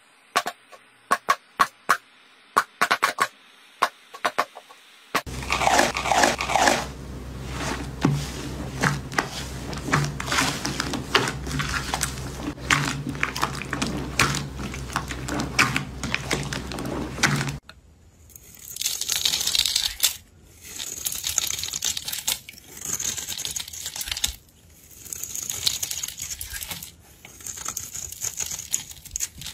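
A few scattered sharp clicks, then thick slime squelching and crackling as hands knead and squeeze it for about twelve seconds. Then a blade shaving a bar of soap, in about five scraping strokes.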